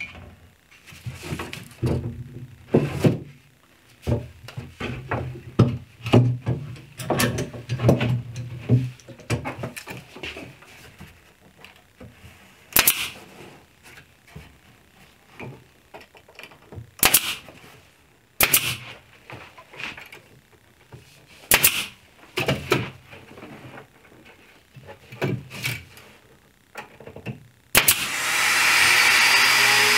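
Pin nailer firing single pins every few seconds as a glued face frame is fastened to a cabinet, with handling knocks between the shots. A hand-held power tool starts running near the end.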